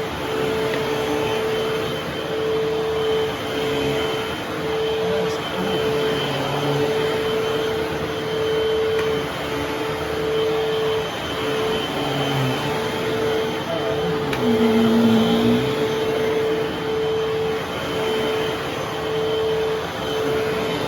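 Eureka vacuum cleaner running steadily: a constant motor whine with a fainter high tone above it, its pitch dipping and recovering briefly a little past halfway.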